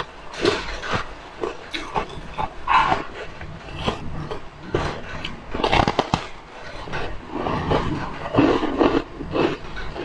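Close-up biting and chewing of a flaky sheet of frozen whipped ice, giving an irregular run of crunches with wet mouth sounds between them.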